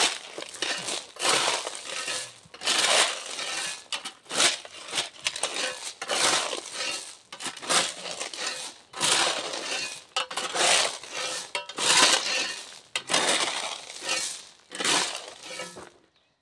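Steel shovel scraping into gravel and stones and tossing them onto a gravel road, about a dozen gritty strokes roughly a second apart, stopping shortly before the end.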